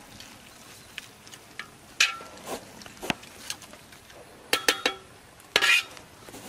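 Scattered clinks of metal cookware being handled at the stove: a few sharp knocks, a quick cluster of ringing clinks about four and a half seconds in, and a louder scrape near the end.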